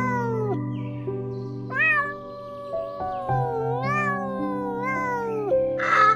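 Domestic cat meowing over steady background music: a meow trailing off at the start, a short meow about two seconds in, and a long drawn-out meow that rises and then falls near the end. A short harsh burst of noise right at the end is the loudest sound.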